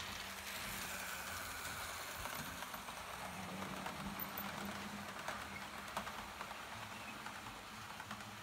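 Model train running past on layout track: a light rattle of wheels over the rails with small clicks and a low motor hum, strongest in the middle and easing off near the end.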